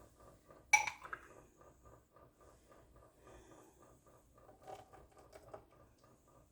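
A single sharp, ringing clink of kitchenware less than a second in, then faint light knocks and handling noise.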